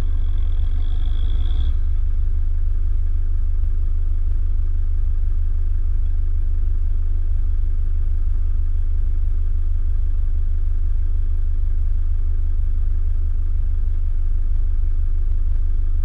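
Steady low rumble of a vehicle idling, picked up through a hood-mounted camera. For the first couple of seconds a higher engine tone rises over it as the bogged Toyota Land Cruiser HDJ80 ahead spins its wheels in soft dune sand.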